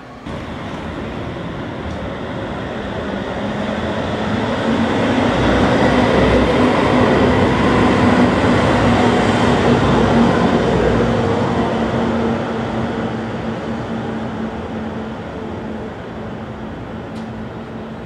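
A tram passing close by: its rolling and rumbling noise builds over about five seconds, stays loud with a steady low hum for several seconds, then fades away.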